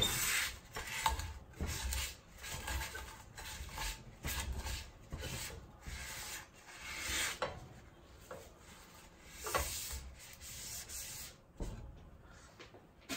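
A paper towel is rubbed across the inside of a non-stick frypan in short scratchy strokes, roughly one or two a second, with the strokes spreading out near the end.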